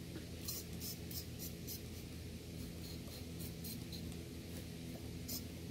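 Trigger spray bottle of WD-40 squirting in short hisses, about nine in quick succession with a pause in the middle, soaking corroded carburetor parts. A steady low hum runs underneath.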